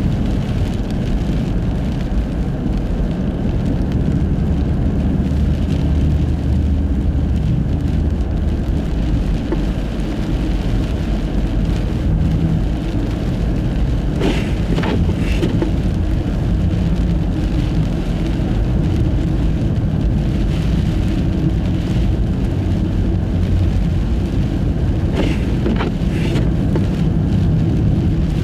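Car driving on a snow-covered road in a blizzard on studless tyres: a steady low rumble of tyre and wind noise, with a few short knocks twice, around the middle and near the end.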